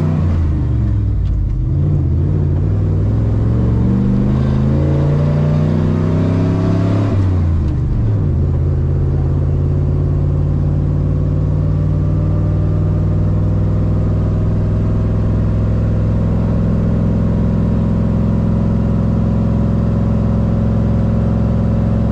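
Pickup truck engine heard from inside the cab while towing a loaded car trailer. It accelerates, its pitch climbing and dropping several times as through gear changes, then settles into a steady cruising drone about eight seconds in, with road noise underneath.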